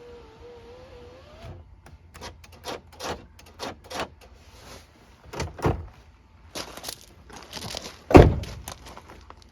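Clicks and knocks from handling a pickup truck's door, with one heavy thunk about eight seconds in.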